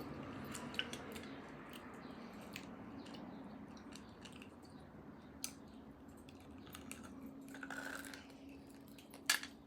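Soft, faint mouth-close chewing of air-fried bone marrow, with scattered small wet clicks and smacks. A faint steady hum runs underneath.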